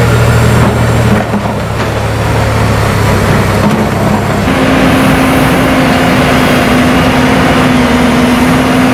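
Heavy construction machinery engines, a hydraulic excavator and a mobile crane, running steadily. About four seconds in, the low engine hum gives way to a steady higher engine note.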